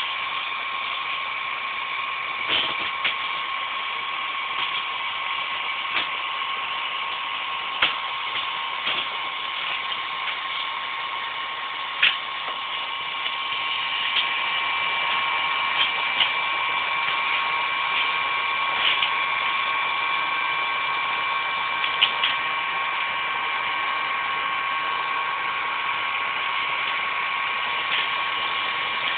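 Hot-air dryer running steadily with a high whine, blowing hot air onto a male mould to melt it out of a cured carbon-fibre shell. A few short clicks sound over it, and it gets slightly louder about halfway through.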